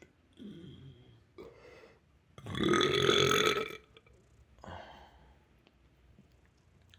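A boy's long, loud burp, about a second and a half, in the middle; a few shorter, quieter sounds come before it and one after.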